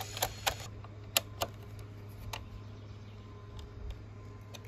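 Sharp little metallic clicks from a bolt being threaded by hand into a steel stereo mounting bracket and an Allen wrench being set in its head: about five clicks in the first couple of seconds, then only faint ticks, over a low steady hum.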